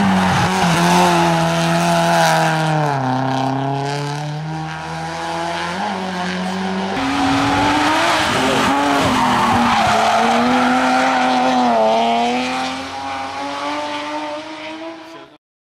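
Rally cars driven hard through a bend one after the other: first a small hatchback's engine revving and dropping in pitch as it slows, then about seven seconds in a BMW E36 3 Series takes over, its engine rising and falling through the gears before fading. The sound cuts off abruptly near the end.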